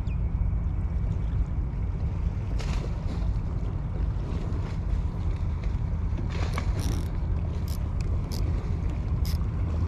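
Steady low wind rumble buffeting the microphone, with a few short light clicks and swishes in the second half.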